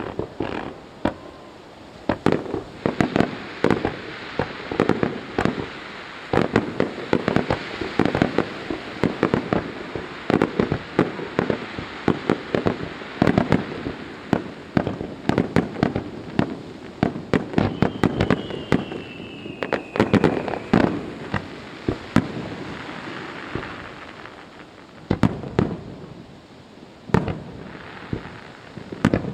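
Aerial fireworks display: a dense, rapid barrage of shell bursts and crackling reports, with one falling whistle about two-thirds of the way through and a brief thinner spell before the bursts pick up again.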